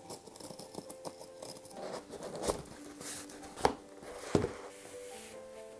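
A cardboard shipping box being slit open with a box cutter and its flaps pulled apart: the blade cutting packing tape, with three sharp rips or cardboard snaps in the middle. Soft background music with held notes plays under it.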